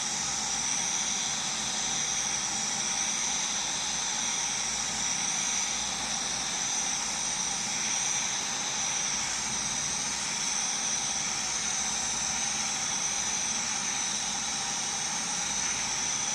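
Arc welding on a pipe joint: the arc running with an unbroken steady hiss.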